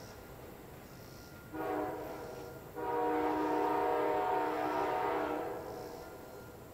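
Amtrak P40 diesel locomotive's air horn, heard from down the line, sounds a short blast about a second and a half in and then a long blast of about two and a half seconds, which fades away.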